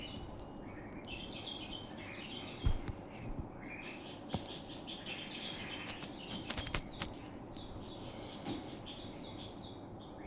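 Small songbirds chirping in many short, high calls, with a quick run of repeated chirps near the end. Two sharp knocks come in between, about a quarter and two-fifths of the way through.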